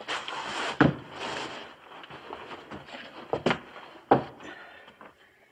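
Footsteps on wooden floorboards: a few heavy footfalls knocking on the wood, with scuffing and shuffling of the feet between them.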